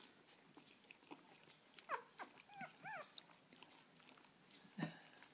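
Newborn labradoodle puppies squeaking faintly while nursing: a handful of short high squeaks about two to three seconds in, one sliding down and the others rising and falling, among small clicks, with a soft bump near the end.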